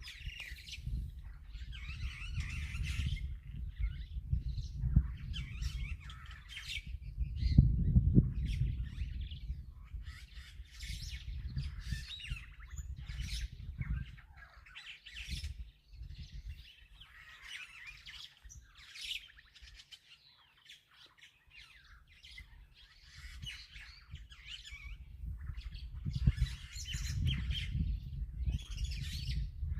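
Wild birds chirping and squawking in many short, repeated calls, over a low rumble that swells about eight seconds in and again near the end.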